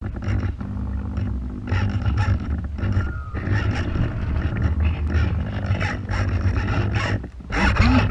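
Wind buffeting the deck-mounted camera of a radio-controlled sailing yacht under way, a steady low rumble with rough surges, mixed with water splashing and slapping against the small hull.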